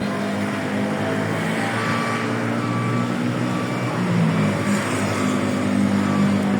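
A motor vehicle engine running steadily, its pitch shifting briefly about four seconds in.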